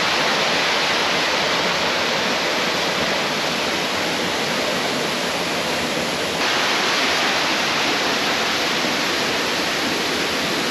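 Loud, steady rushing of a mountain stream or cascade close by, with a sudden change in its tone about six seconds in.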